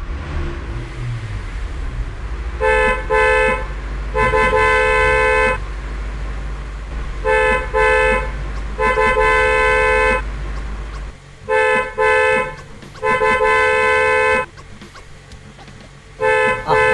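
Car horn honking over and over in a repeated pattern: two short toots and then a long one, three times, with another short toot near the end. Under the first part there is a low steady rumble that stops about two-thirds of the way through.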